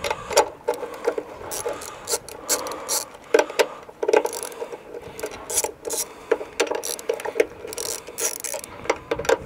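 Ratchet wrench clicking in short, uneven runs as it loosens the small nuts on a water-heater tank's element plate.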